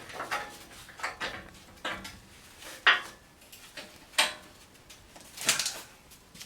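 Scattered metallic clinks and clanks from steel parts and hand tools being handled. The loudest knock comes about three seconds in, and a longer rattle comes near the end.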